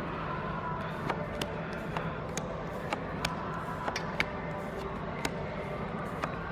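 Magic: The Gathering trading cards being flipped through one at a time in the hand, giving short sharp card clicks about twice a second over a steady low background hum.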